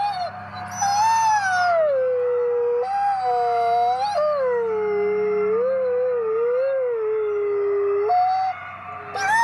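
Gray wolf (Canadian/Rocky Mountain) howling close by, with other wolves howling at once behind it. The near wolf's long howls rise, slide down and waver, breaking briefly about 3 s in and again about 8 s in before a fresh rising howl starts near the end.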